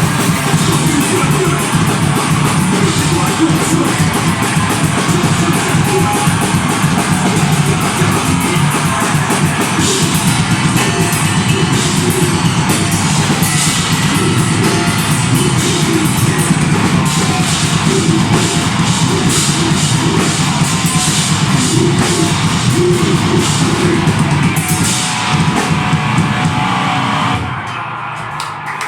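Deathgrind band playing loudly live: drum kit and heavily distorted guitars in a dense, fast wall of sound. The song cuts off near the end.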